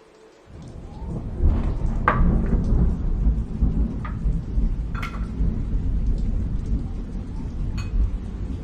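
Rain falling, with a long, low rumble of thunder that rolls in about half a second in and keeps going. A few sharper drips or taps stand out over the rain.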